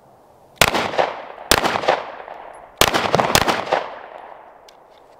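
Glock 19X 9mm pistol with a GFLEX binary trigger, which fires on both the pull and the release, firing about five shots at uneven spacing, the later ones in two quick pairs, each shot trailing off in an echo.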